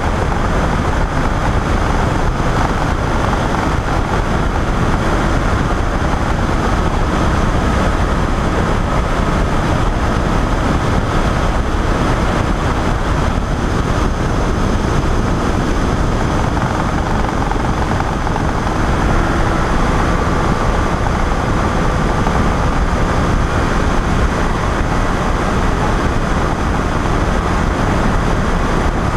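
Weight-shift microlight trike's pusher engine and propeller running steadily in flight, with a faint steady whine in a dense rush of air noise on the wing-mounted camera.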